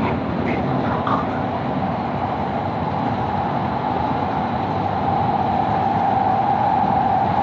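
Doha Metro train car heard from inside while running: steady rumble and rolling noise with a steady whine that grows louder about five seconds in.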